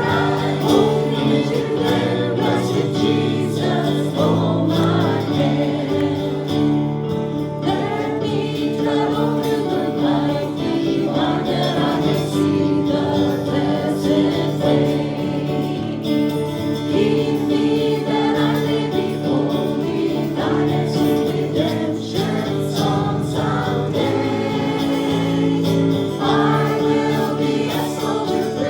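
Gospel hymn music: singing voices with instrumental accompaniment, steady throughout.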